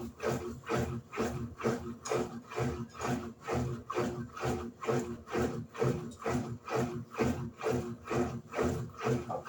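Electrolux LED14 top-loading washing machine agitating its load: water and clothes swishing back and forth with each agitator stroke, about two to three strokes a second, over the hum of the motor.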